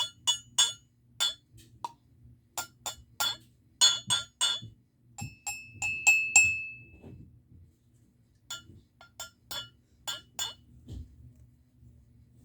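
Cups struck one after another to play a simple tune. Each hit is a sharp clink with a short ringing pitch, and different cups give different notes. The hits pause for about a second and a half past the middle, then a few more follow.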